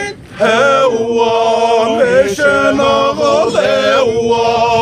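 Group of Naga men chanting a traditional chant together, in rising and falling phrases. The chant drops out for a moment at the start and comes back in loudly.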